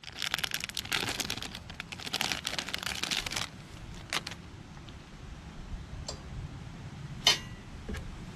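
Clear plastic parts bag crinkling as it is handled and opened for about three and a half seconds, followed by a few separate sharp clicks and taps, the loudest near the end.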